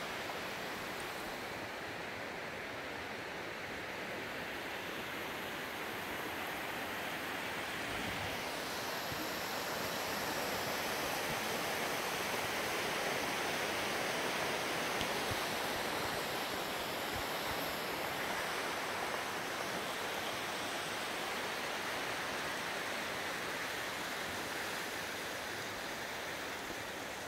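Steady rushing of a creek, a little louder through the middle.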